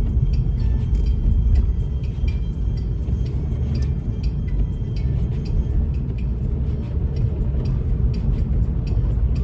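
Steady low rumble of a car driving on a snowy road, heard from inside the cabin, with faint scattered light clicks throughout.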